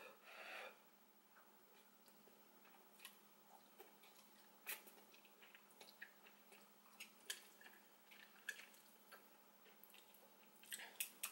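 Faint mouth sounds of someone eating noodles: soft wet smacks and clicks while chewing, scattered through and more frequent near the end.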